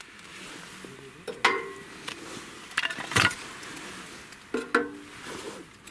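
Wooden kindling sticks being set onto a steel fire grill's grate: about half a dozen separate knocks and metallic clinks, each ringing briefly, the loudest a little after halfway.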